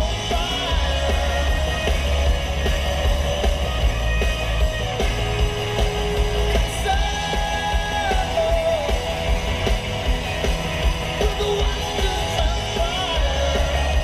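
Rock song with a singing voice and strong bass playing on a car stereo, with a steady beat.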